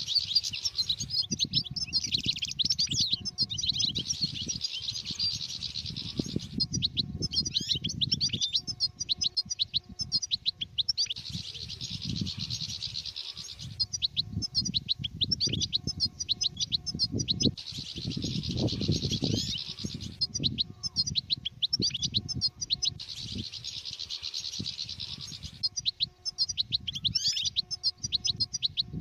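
European goldfinch singing: rapid twittering phrases a few seconds long, broken by short pauses, with a low rumbling noise underneath.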